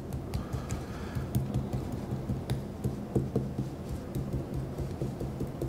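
Gloved fingers pressing and tapping copper leaf down into the grooves of a gourd: a run of soft, irregular taps over a steady low hum.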